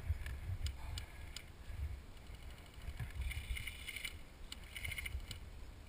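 Wind rumble on the microphone with a few faint sharp clicks and two short rattling bursts about three and five seconds in: distant airsoft guns firing.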